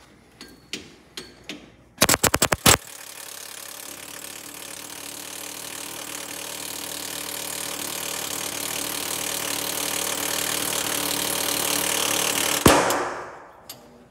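Pneumatic impact wrench hammering in a quick burst of about seven blows, then running steadily for about ten seconds while it removes the kingpin cap bolts on a bus front axle. The run grows steadily louder and stops suddenly near the end.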